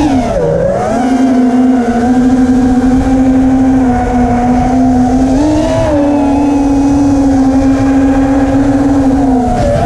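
Brushless motors and propellers of a 180 mm FPV racing quadcopter, picked up by its onboard camera: a steady buzzing whine whose pitch swings up and down with throttle changes, about a second in, near the middle and near the end, over a low rumble of wind.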